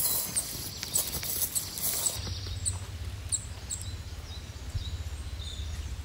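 Nitrile-gloved hands rubbing and pressing pepper seasoning into raw steak, a wet, crackly slapping with many small clicks. After about two seconds this gives way to a steady low rumble with a few faint high chirps.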